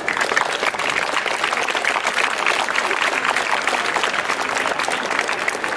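Audience applauding: many people clapping, starting suddenly and going on steadily.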